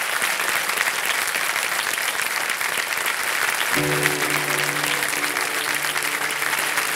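Studio audience applauding steadily. Held background music chords come in a little past halfway.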